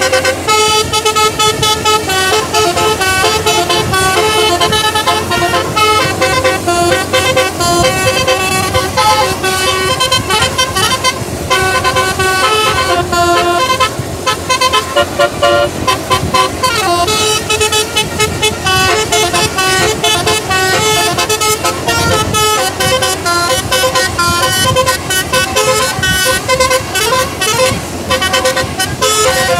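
Bus telolet (basuri) musical air horn playing a fast, unbroken melody, several horn tones sounding together and changing note several times a second.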